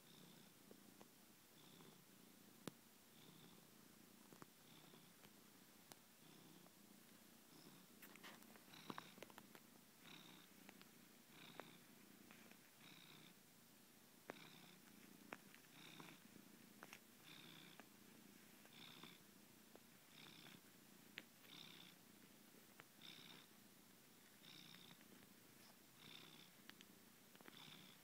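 Domestic cat purring steadily and faintly, the purr swelling and easing with each breath, about one breath every second and a half. A few sharp clicks are scattered through it.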